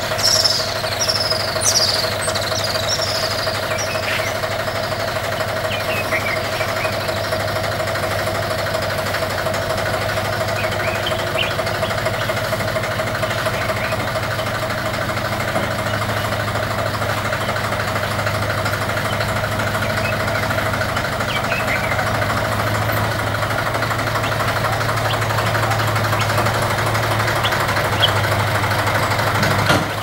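A steady mechanical hum runs throughout, with a quick run of high, falling bird chirps in the first two seconds and a few faint chirps scattered later.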